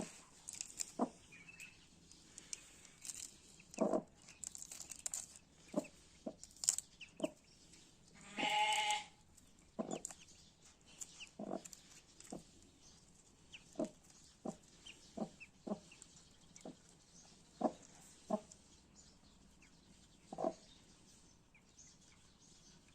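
Newly hatching duckling peeping: many short, separate calls spread irregularly, and one longer, drawn-out call about nine seconds in.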